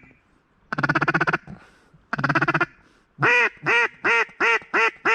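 Mallard hen duck call blown by a hunter working a single mallard: two short bursts of rapid chatter, then from about three seconds in a loud string of quacks, about three a second.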